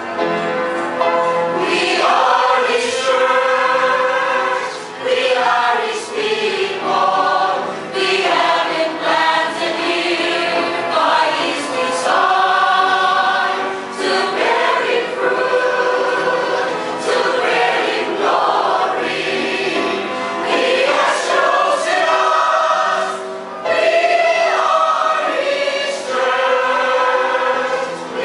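Mixed choir of women's and men's voices singing a sacred song in sustained chords, phrase after phrase, with brief breaks between phrases.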